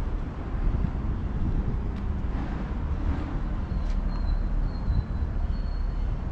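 Steady low outdoor rumble, with a couple of faint clicks and a faint thin high tone about halfway through.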